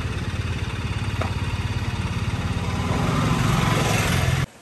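Compressed-air rig pumping old brake fluid out through a tube: a steady motor-like chugging with rapid even pulses and a hiss. It grows louder in the last second or so, then cuts off suddenly just before the end.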